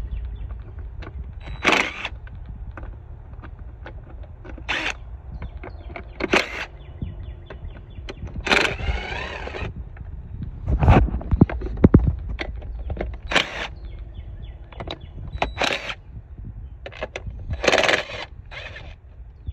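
Cordless impact driver (DeWalt 20V) with a socket spinning out 8 mm cover bolts in short bursts, about ten times, with one longer run near the middle that whines up and down in pitch.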